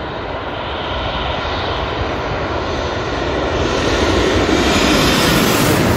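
Japan Airlines jet airliner on short final to runway 10, passing low overhead. Its engine noise grows steadily louder and peaks near the end as it goes over.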